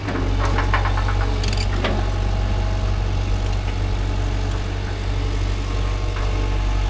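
Excavator engine running steadily under the operator's control, with a few short metallic clanks about half a second to two seconds in.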